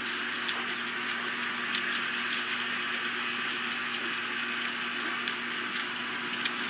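Steady rushing of flowing river water, with a faint steady electrical hum and a few faint ticks.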